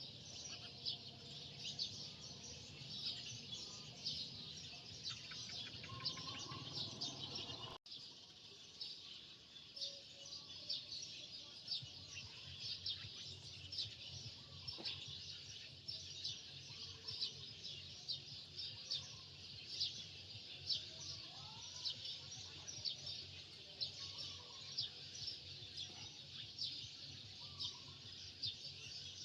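Many small birds chirping continuously in rapid, overlapping high chirps over a faint low background hum. The sound briefly cuts out about eight seconds in.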